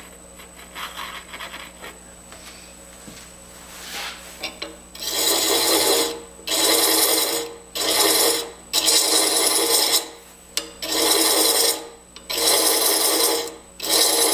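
Hand thread chaser cutting threads into a slow-turning end-grain wood insert on a lathe: about seven scraping passes, each about a second long with short gaps, starting about five seconds in, over the lathe's steady hum. The wood is very dry and its threads have been lubricated with mineral oil.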